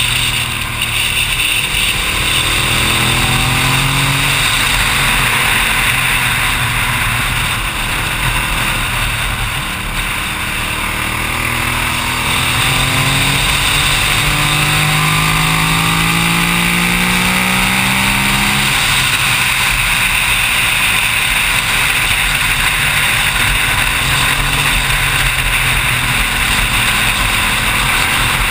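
Wind rushing over the on-board camera of a Suzuki SV1000 sportbike at speed, with its V-twin engine note underneath rising and falling through the curves. About two-thirds of the way in the engine pitch climbs steadily for several seconds, then drops, as on an upshift.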